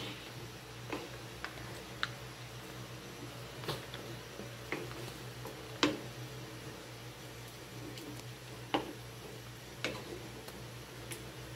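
Wooden spatula stirring thick tomato meat sauce in a metal pan: irregular soft knocks of the spatula against the pan, about ten in all, with wet squelching of the sauce.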